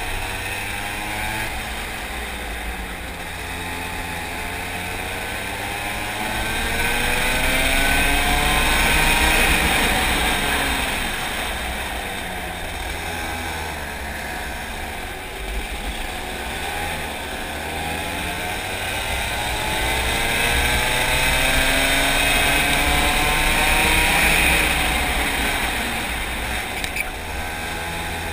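Racing go-kart engine heard on board at speed, its revs climbing twice to a loud high-pitched peak and falling back between them as the kart accelerates and slows for corners.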